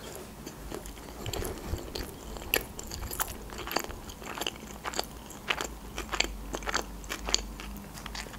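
Chewing a crumb-coated deep-fried sushi roll close to the microphone: irregular crisp crunches of the fried crust, with soft mouth sounds between them.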